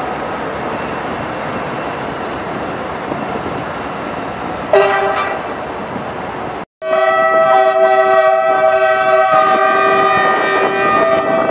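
NOHAB (MÁV M61) diesel locomotive's EMD two-stroke V16 engine running as it pulls away, with a short horn blast about five seconds in. After a brief break, a locomotive's multi-tone horn sounds a long, steady chord.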